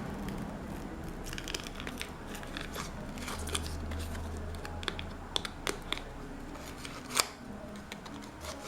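Irregular small clicks and crackles of a cracked touchscreen digitizer being pried and peeled away from its adhesive on a Samsung Galaxy Tab 3 tablet, with one sharper crack about seven seconds in.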